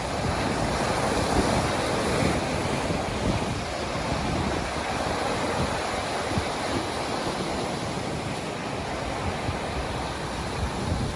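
Ocean surf washing in steadily, a little louder in the first few seconds, with wind buffeting the microphone.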